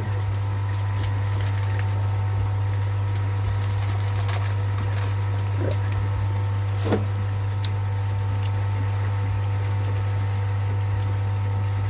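Electric pump running with a steady low hum, with a few faint clicks and taps of handling about midway.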